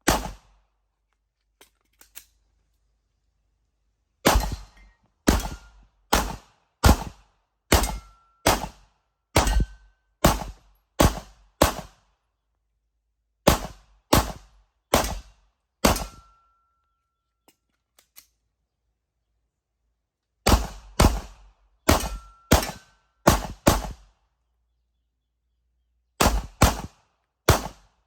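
Glock 17 Gen 5 9mm pistol fired in strings of shots, roughly one or two a second, with pauses of a few seconds between strings. A short ringing tone trails after some of the shots.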